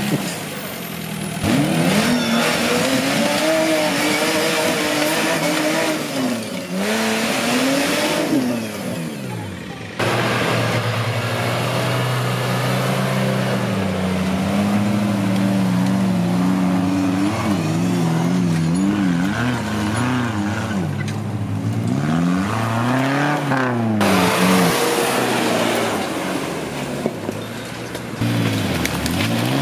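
Off-road competition vehicles' engines revving hard, their pitch rising and falling again and again as they claw up steep loose dirt climbs. The sound changes abruptly several times as one vehicle gives way to another.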